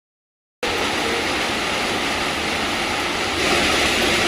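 Steady hiss of heavy rain, starting abruptly just over half a second in.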